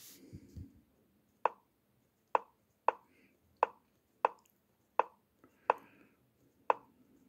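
Online chess app's move sound, a short sharp click played about eight times at irregular gaps of half a second to a second, one for each move as the opening is played quickly.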